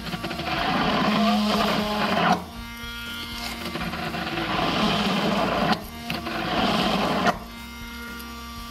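Hand immersion blender running in a tall plastic beaker, whirring steadily as its blade churns egg and oil into mayonnaise. The churning grows louder and rougher, then drops away suddenly about two and a half seconds in, near six seconds and again near seven.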